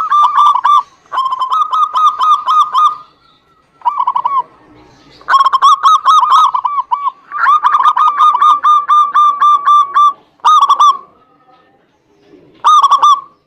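Zebra doves (perkutut) cooing: bouts of rapid, repeated ringing notes, each bout lasting from under a second to about three seconds, separated by short pauses, with a last short bout near the end.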